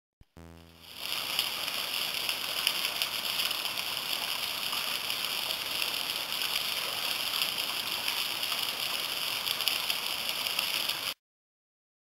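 Thin waterfall spilling off a rock overhang and splashing below, a steady rush of falling water. A click comes at the start, the water sound rises within the first second, and it cuts off sharply near the end.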